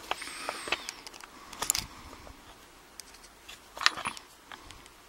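Small metallic clicks and scrapes from the parts of a Chubb rim cylinder lock being handled and worked apart, with a cluster of clicks under two seconds in and the loudest click just under four seconds in.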